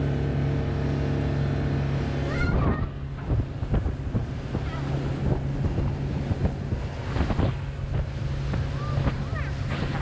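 Small motorboat's engine running steadily, then breaking off suddenly about two and a half seconds in. After that, wind buffets the microphone in gusts over a low hum.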